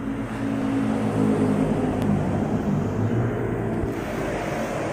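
An engine running with a steady hum whose pitch wavers slightly; it swells about a second in and fades near the end.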